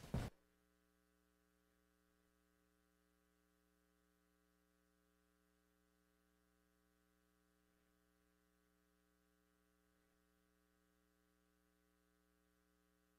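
Near silence with a faint, steady electrical hum of several fixed tones, after a short bump right at the start.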